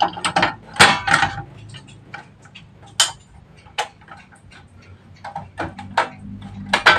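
Butane gas canister being fitted into a portable gas stove: a series of sharp, irregular clicks and clacks of metal can against the stove's plastic and metal housing, with a few close together about a second in and a cluster near the end.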